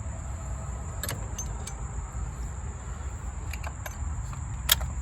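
Steel hand tools clinking as a socket extension is fitted to the ratchet: a few light metallic clicks, then a sharper click near the end, over a steady low rumble.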